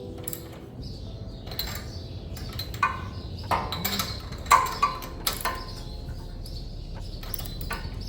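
Scattered metallic clinks and knocks from hand tools being worked on a ride-on mower, several of them ringing briefly, the loudest about halfway through.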